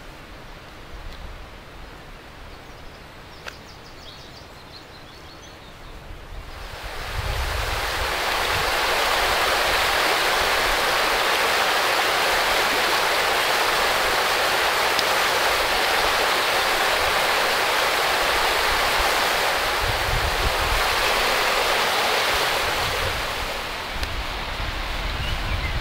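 Shallow river water rushing over stones, a steady hiss of running water that swells up about seven seconds in and then holds even. Before that there is only a quiet low rumble.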